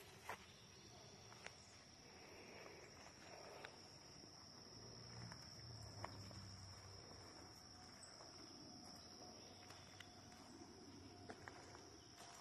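Near silence, with a faint, steady, high-pitched insect trill and a few light clicks.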